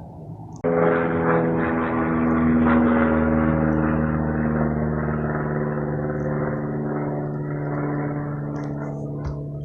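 Low-flying small aircraft's engine and propeller drone overhead, starting abruptly about half a second in and holding a steady pitched tone that eases slightly toward the end.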